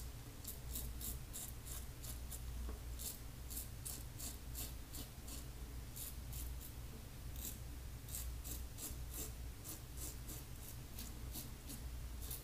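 Double-edge safety razor (Maggard V3 head) scraping through lathered stubble on the upper lip and cheek. The strokes are short and faint, a few a second, in runs with brief pauses.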